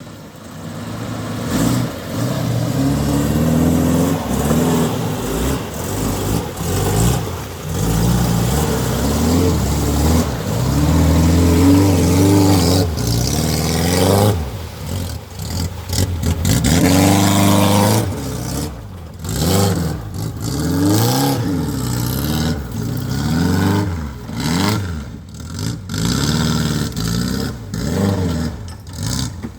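Off-road vehicle engine running under load, its revs rising and falling again and again.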